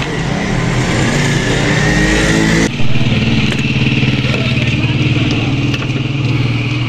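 A motor running steadily: a low hum with a high whine that rises slowly, breaks off abruptly about two and a half seconds in, then carries on a little higher. A few light clicks are heard over it.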